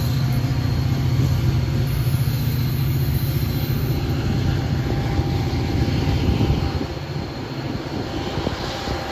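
GP40PH-2B diesel-electric locomotive running as its train pulls away along the track, a steady low engine drone that eases off a little after about six and a half seconds.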